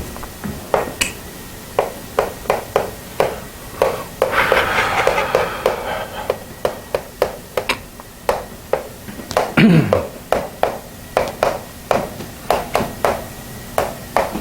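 Pen writing out a math solution: a quick, irregular run of short taps and ticks as strokes land, with a longer scratching stretch about four to six seconds in and a dull low thump near ten seconds.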